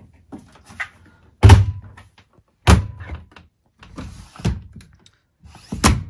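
A series of heavy thunks from a Bosch Series 6 i-DOS front-loading washing machine as its door is pushed shut and the machine is handled. The loudest is about a second and a half in, with three more following over the next few seconds.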